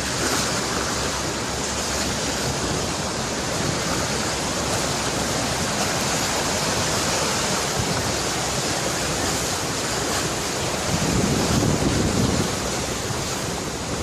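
Steady rushing noise of water, even and unbroken, with a little more low rumble about eleven seconds in.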